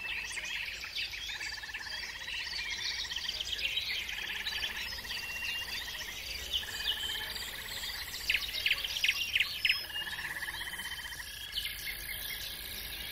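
Small songbirds chirping and trilling together, with rapid buzzy trills under many short, sharp chirps. A cluster of louder chirps comes about eight to ten seconds in.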